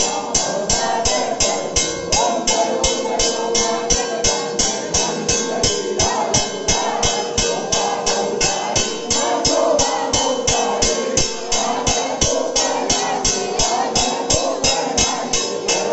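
Devotional aarti music: fast, even percussion beats, about four to five a second, under singing voices and a steady held tone.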